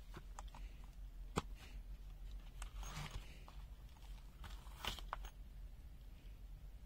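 A screwdriver and bit set being handled: scattered sharp clicks, the loudest about one and a half seconds in and another few near the end, with a short crinkling rustle in the middle.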